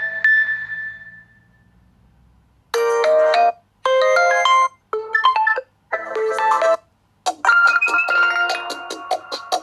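OPPO A16 phone tones playing back. The first tone rings out on one held note and fades. After a short pause a new synthesized melody begins in four short chord phrases, then turns into a denser run of quick notes over a sustained chord about seven seconds in.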